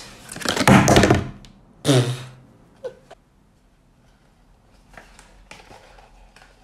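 Cardboard box scraping and rustling as it is pulled out of a cardboard advent-calendar compartment, loudest in the first second and a half. A few soft taps and faint rustles follow as the box is handled.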